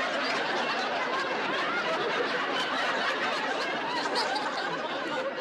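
Studio audience laughing, a steady wash of many voices that goes on without a break.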